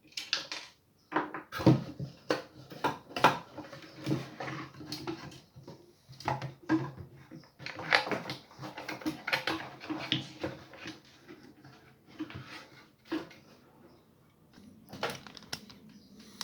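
Irregular clicks, knocks and rattles of hard plastic and small metal parts being handled during disassembly of a Logitech Z313 subwoofer, some sharp and some clustered close together.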